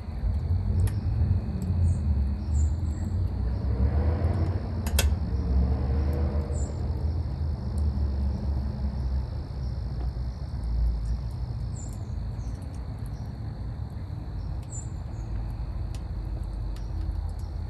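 Outdoor ambience: a steady drone of crickets and a few short bird chirps over a constant low rumble. A louder swell of noise builds and fades around four to six seconds in, with a sharp click at its peak.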